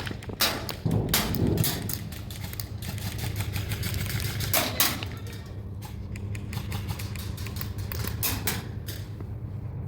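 Airsoft guns firing during close-quarters play: sharp, irregular clicks and cracks of shots and BB hits, some in quick clusters, over a steady low hum.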